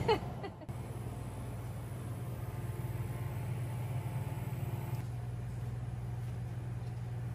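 Steady low hum of indoor room tone.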